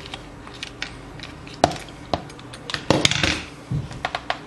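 Small metal clicks and clinks of an Allen key working the screw of a coil tattoo machine's binding post, to take the post off: scattered single ticks, a sharper click about a second and a half in and a quick cluster about three seconds in.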